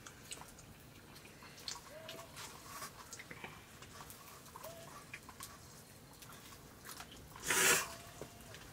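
People eating rice by hand from steel plates: soft clicks and scrapes of fingers on the metal, and chewing. Three short high peeps sound about two, four and a half and eight seconds in, and a loud brief rush of noise comes about seven and a half seconds in.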